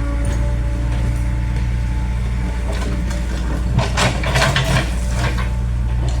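Excavator's diesel engine running steadily, with a short spell of clattering about four seconds in.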